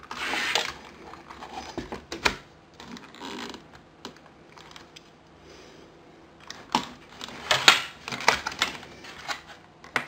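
Hands handling a plastic electronics box and the wiring inside it: rustling wires and scattered sharp clicks and taps, most of them bunched about seven to nine seconds in.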